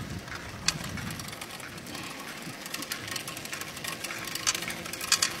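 Bicycle being ridden on pavement: a steady light rolling noise from the tyres and drivetrain, with a few sharp clicks or rattles from the bike about a second in and again near the end.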